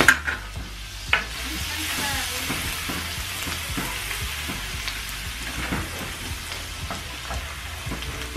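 Food sizzling as it fries in oil and butter in a stainless steel skillet, stirred with a wooden spoon that scrapes and knocks lightly against the pan. A sharper clatter right at the start as a ceramic bowl is set down on the stovetop, and another knock about a second in.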